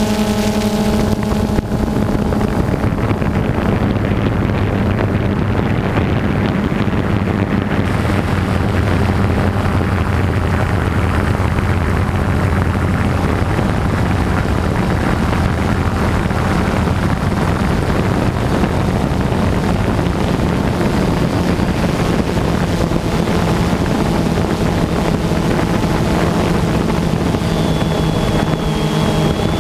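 DJI Phantom 2 quadcopter's motors and propellers buzzing steadily, picked up by the GoPro it carries, with wind noise on the microphone. The buzz holds a low hum and a higher one; the lower hum fades about two-thirds of the way through while the higher one carries on.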